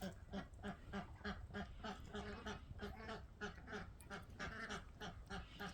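Young Muscovy ducks giving a steady run of short, rapid calls, about four to five a second.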